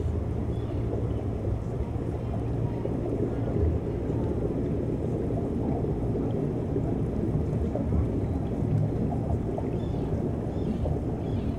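Underwater ambient sound picked up by a submerged reef camera: a steady low rumble of moving water, with a few faint crackles now and then.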